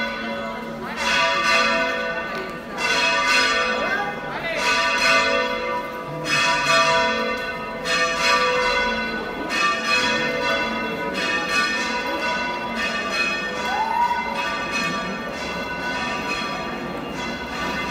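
Church bells ringing, struck again roughly every second or so so that the tones overlap and keep sounding, with faint voices underneath.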